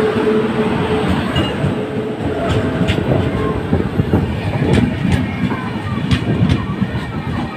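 Passenger train running along the track, a dense steady rumble of wheels on rail with scattered clicks. A steady hum fades out about a second in.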